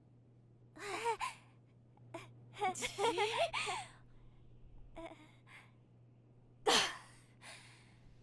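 A voice making wordless sounds: several short pitched, whimpering cries and breathy gasps, the loudest a sharp gasp about two-thirds of the way through.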